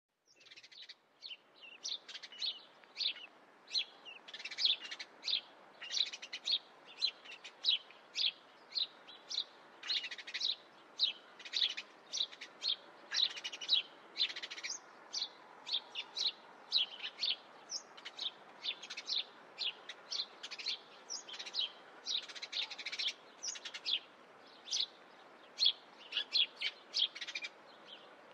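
Small birds chirping, a busy run of short high chirps several times a second over a faint steady hiss.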